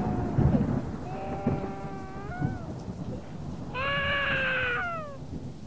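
Long, drawn-out wailing cries, each held about a second with a slight fall in pitch: two full ones, the second higher and louder, over a continuous low rumble.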